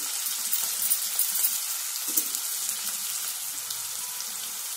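Chopped onions and slit green chillies frying in hot oil in a kadai: a steady high sizzle with many small crackles as the oil hits the fresh, wet pieces.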